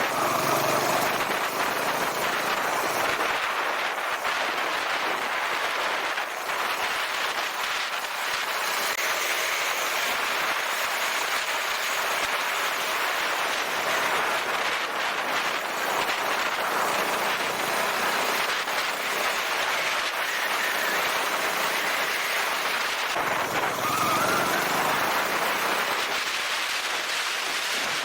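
Honda Rebel 250 ridden on the road: a steady rushing hiss of wind and road noise, with the single-cylinder engine's note faintly rising and falling beneath it and climbing a few seconds before the end.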